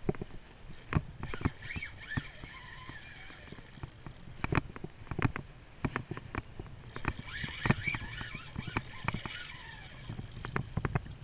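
Spinning reel's drag clicking rapidly as a hooked fish pulls line off, in two runs of about three to four seconds each with a short pause between, among scattered knocks of handling on the boat.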